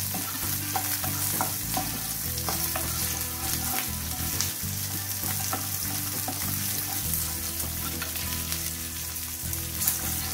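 Green chillies, garlic and ginger sizzling in a spoonful of oil in a nonstick frying pan while being sautéed, stirred with a wooden spatula that scrapes and taps the pan now and then.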